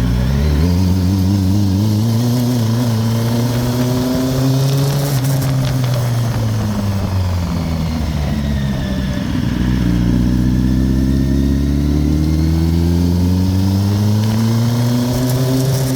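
2008 Kawasaki ZX-10R inline-four engine revved slowly up and back down twice, from an engine that is warmed up but not fully hot. The owner is trying to trace a knocking noise from this engine.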